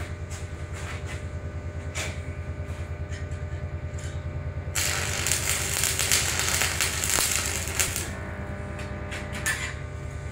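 Stick (arc) welding: about five seconds in the electrode strikes an arc on the steel frame and crackles and hisses for about three seconds before dying down. A steady pulsing hum runs underneath.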